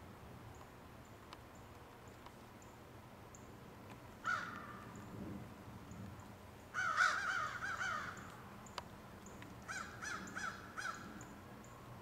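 Crow cawing: a single caw about four seconds in, then a louder run of quick wavering caws, and near the end a shorter run of about four caws.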